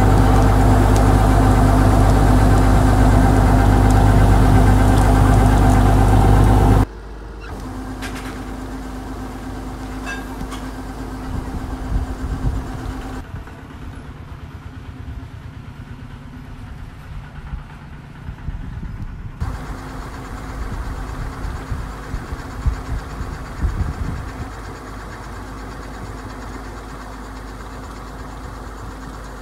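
Kubota DC-105X combine harvester's diesel engine running steadily while its unloading auger pours rice grain into sacks, loud and close at first, then dropping suddenly about seven seconds in to a quieter, more distant hum with scattered knocks and rustles.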